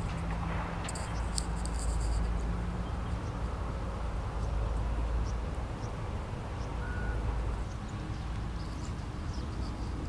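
Outdoor ambience: a steady low rumble, with a cluster of short high chirps in the first two seconds and a few fainter ones later.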